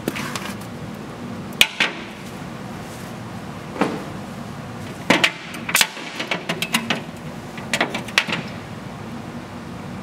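Metal ratchet strap buckles being handled and set down on a glass tabletop: scattered sharp metallic clicks and clanks, with a quick run of lighter clicks a little past the middle.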